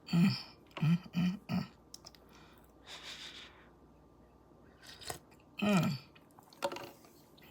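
A woman's short hums and mouth sounds while tasting hot coffee: four quick hums in the first two seconds, a soft breathy sound about three seconds in, and one falling hum near six seconds.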